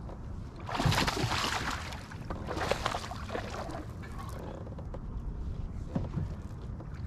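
Kayak paddle dipping and pulling through the water: two splashy strokes in the first few seconds, then a small knock, over a low steady rumble.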